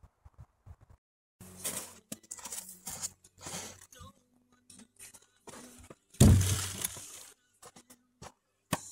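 Firewood log rounds being loaded into the back of a vehicle: a run of knocks and scrapes as the logs are shifted, then one heavy thud about six seconds in as a log is set down on the pile.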